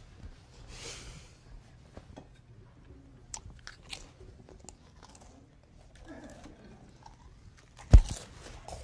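Quiet room tone with scattered small clicks from a person biting at his fingernails, and a single low thump near the end.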